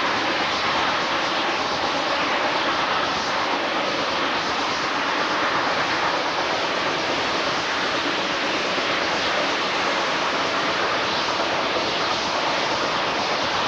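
Steady rushing noise of a steam-hauled train in motion, heard from an open carriage window: the running noise of the train mixed with wind, even and unbroken, with no distinct beat or rhythm.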